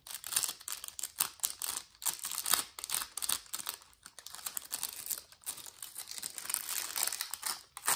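Clear plastic nail transfer foil crinkling and crackling as the sheet is handled and pressed onto a press-on nail, a continuous run of small sharp crackles.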